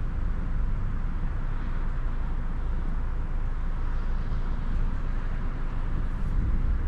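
Steady low outdoor rumble with a band of hiss above it, even in level throughout, with no thunderclap or other sharp sound.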